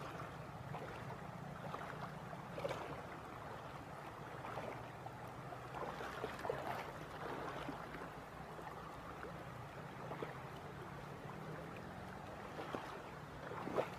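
Shallow rocky river running over stones: a steady wash of water with small irregular gurgles.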